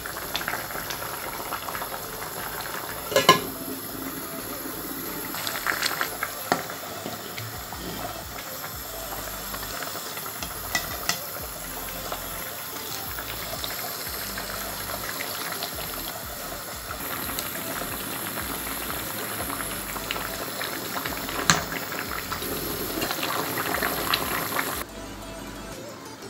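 Curry simmering and bubbling in an aluminium pot on a stove, with a few sharp metal clinks against the pot, the loudest about three seconds in.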